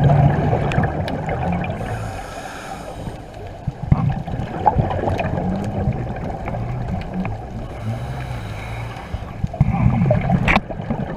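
Rushing, gurgling water noise with scattered clicks, getting louder near the end.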